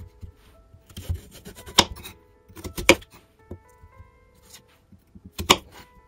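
Knife cutting through raw pumpkin on a wooden cutting board: three sharp cutting strokes with the blade meeting the board, and softer scraping and handling of the pieces in between. Soft background music plays underneath.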